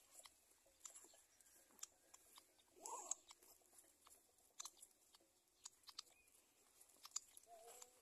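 Near silence broken by scattered faint clicks and ticks, with one short squeak rising in pitch about three seconds in.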